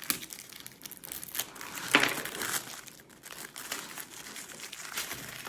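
Packaging of a firecracker pack crinkling and tearing as it is pulled open by hand, in irregular crackles with a sharper, louder rip about two seconds in.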